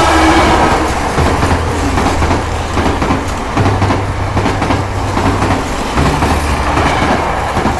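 Battery-powered Plarail toy train running on plastic track: the small electric motor hums steadily under a continuous plastic rattle and clatter of wheels on the track.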